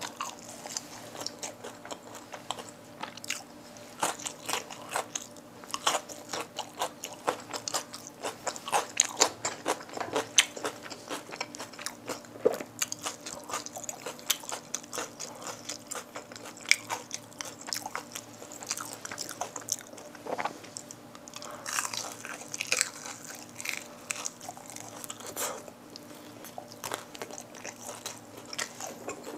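Close-miked biting and chewing of crispy Kyochon Red Combo fried chicken, with many irregular sharp crunches throughout.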